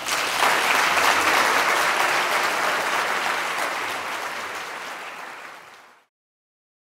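Audience applauding in a dense, steady clatter that gradually fades and then cuts off about six seconds in.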